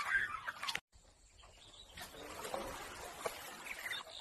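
Faint outdoor lakeside background with a few scattered bird chirps. A brief louder sound at the start cuts off suddenly just under a second in.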